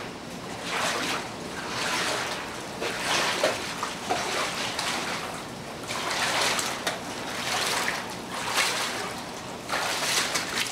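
Water sloshing and splashing in repeated surges, about one a second.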